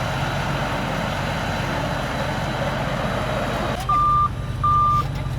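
Bulldozer's diesel engine running with a dense rattling noise over it; near the end the noise drops away and the reverse alarm starts beeping twice as the machine backs up.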